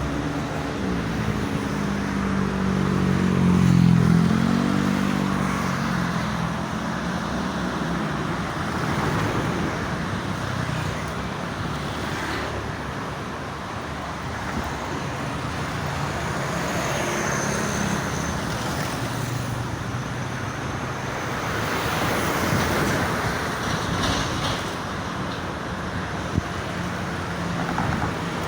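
Steady toll-road traffic noise from passing vehicles, with one engine passing close and loudest about four seconds in.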